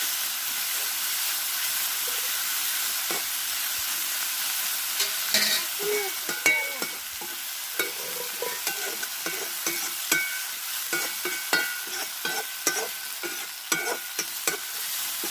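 Onion-tomato masala sizzling in an iron kadai as it is stirred, the utensil scraping and knocking against the pan from about three seconds in. The turmeric powder just added is being fried until its raw smell goes.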